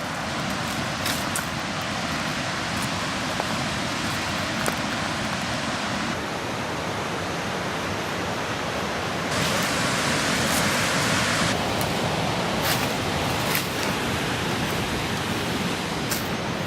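Steady rushing of a waterfall and river, a dense even noise that grows louder and brighter for about two seconds near the middle.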